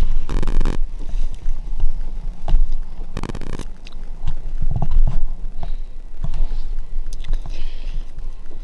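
Steady low rumble of wind buffeting the microphone, with scattered rustles and light thuds of footsteps and a deer carcass dragged through grass. Two louder scraping rustles, one right at the start and one about three seconds in.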